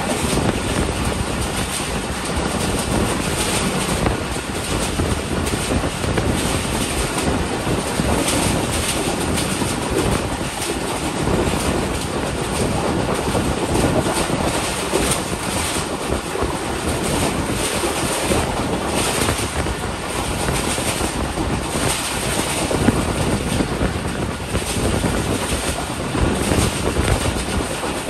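Passenger train running at speed: a steady rush of wheel-on-rail noise, without any distinct clatter.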